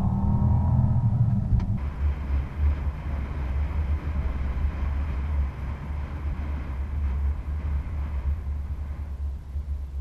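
Low, steady rumble of wind and road noise picked up outside on the bonnet of a Mercedes-Maybach S 600 rolling slowly along a paved lane. It takes over abruptly about two seconds in from a deeper in-cabin hum.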